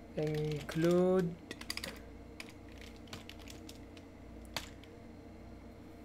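Computer keyboard keys clicking as a short line of code is typed: a quick run of keystrokes, then a few spaced clicks with one louder keystroke about four and a half seconds in.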